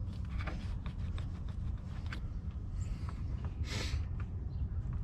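Scattered light clicks and knocks of hand tools and metal battery hardware being handled, with one longer scrape a little before four seconds in, over a steady low rumble.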